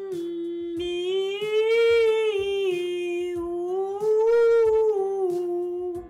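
A woman's alto voice singing a vocal warm-up on 'm, mi, ou': a hummed 'm' that opens into a vowel about a second in, the held note gliding up and down twice in one breath over a soft accompaniment, then stopping near the end. It is a resonance exercise meant to place the voice forward.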